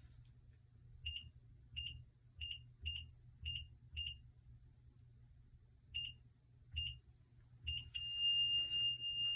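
Kwikset 888 electronic deadbolt keypad beeping as buttons are pressed: six short beeps in quick succession, a pause, three more short beeps, then one long beep of nearly two seconds near the end, which signals that the new code has been accepted.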